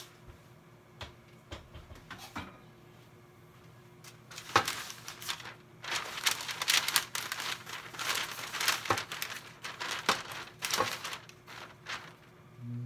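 A sheet of paper being handled and smoothed flat by hand, crinkling and rustling in a run of bursts starting about four and a half seconds in and dying away near the end.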